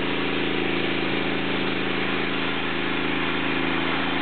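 An engine idling steadily, with an even hiss over it.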